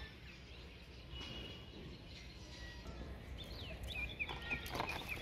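Birds chirping in quick, short, falling calls, mostly in the second half, over a faint steady low rumble.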